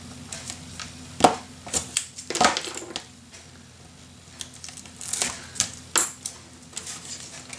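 Cardstock and tape being handled on a craft table: a string of sharp clicks and taps with bursts of paper rustling. The loudest click comes a little over a second in.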